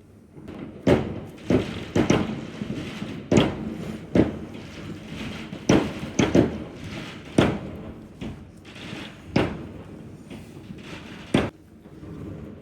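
New Year's fireworks and firecrackers going off, about a dozen sharp bangs at irregular intervals, each with a short echoing tail.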